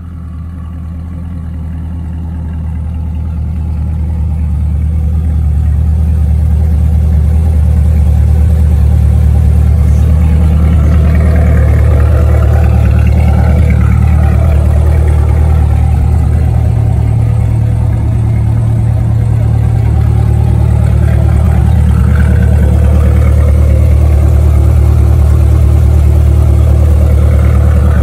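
Twin-turbo C8 Corvette's 6.2 L LT2 V8 idling steadily just after its first start on a newly fitted twin-turbo kit. It grows louder over the first several seconds, then holds level.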